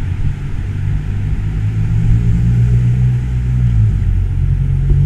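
BMW GS adventure motorcycle's engine running at low revs, a steady low drone that grows louder about two seconds in as the bike comes closer.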